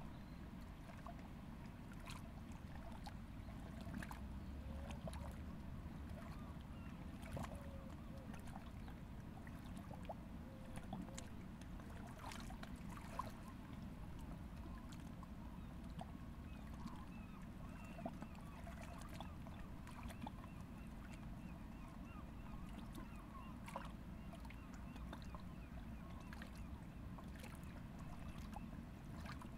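Faint riverside ambience: a steady low rumble with soft water lapping and small clicks, and faint scattered calls of water birds such as geese or ducks.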